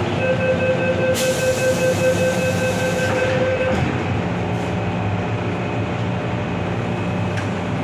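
MTR Island Line M-Train running in the tunnel, heard from on board: steady rumble of wheels and car, with a steady electrical whine that stops about three and a half seconds in and a burst of hiss from about a second in.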